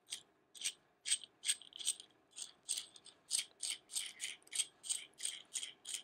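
Steel flange nut being spun by hand down the threaded stud of a leveling foot, clicking and rattling on the threads about four times a second.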